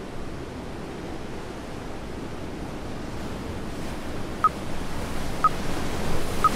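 Ocean surf rushing onto a beach, a steady wash that swells louder toward the end. Near the end come three short, high beeps a second apart from the workout's countdown timer.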